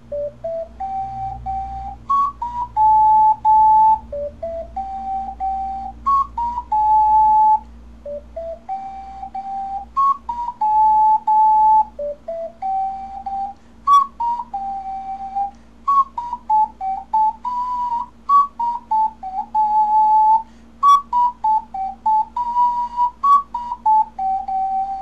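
Ocarina playing a slow solo melody in clear, pure tones. Its phrases climb stepwise from a low note and repeat about every four seconds, then move more freely through higher notes in the second half.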